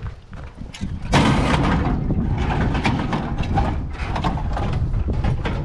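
Steel bed-frame tubes crashing into a steel dump trailer, with a loud clang about a second in, then continued clattering and rattling of metal against metal.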